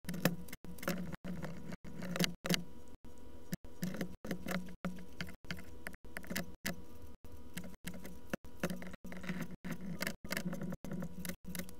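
Small plastic clicks and rattles of model-kit parts and sprue being handled and snipped with hobby nippers, over a steady low hum. The recording drops out for an instant a little less than twice a second.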